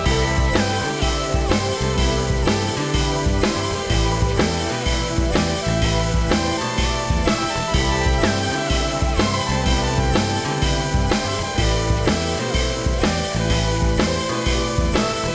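Background music: a rock-style track with a steady drum beat, bass drum and guitar.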